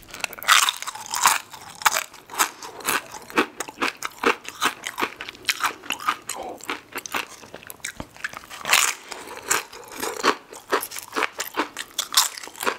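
Close-miked crunching and chewing of thin, fragile tortilla chips, some loaded with queso dip. The crackling runs on irregularly, with louder fresh bites just after the start, about nine seconds in and near the end.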